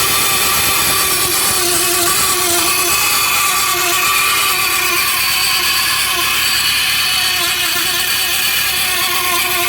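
VW AP 1.8 engine running with a loud, steady, horrible noise carrying several wavering tones: a dented sheet-metal cover rubbing on the timing-belt pulley that drives the distributor.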